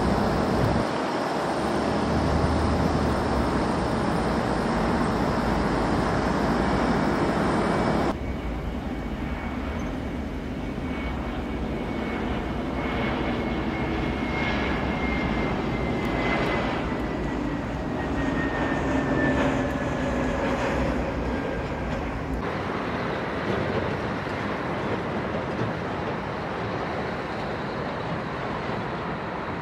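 Airbus A321neo jet engines on final approach: a steady jet roar across several cut-together shots. In the middle shot a high whine slides slowly down in pitch as the airliner passes close by. Near the end the landing airliner is heard more distantly.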